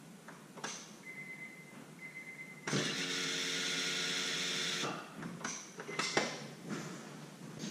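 Electric fuel pump priming at key-on: a steady motor whine for about two seconds, pressurizing the modified fuel rail for a leak check. A faint thin high tone comes just before it, and a few clicks and knocks follow.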